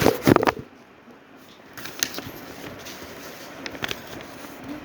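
Hands handling packaging: a quick burst of knocks and rustles at the start, then a few scattered clicks and rustles.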